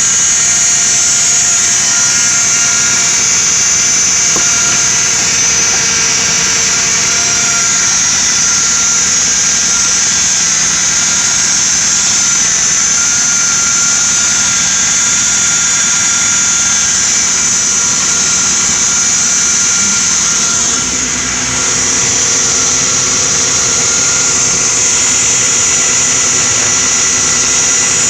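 A 2010 Ford Explorer's 4.0-litre V6 engine running steadily, with a strong steady high hiss over it.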